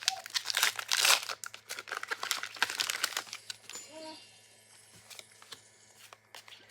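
Foil booster-pack wrapper crinkling and being torn open, a dense crackle for the first three seconds or so that then dies down to a few soft rustles.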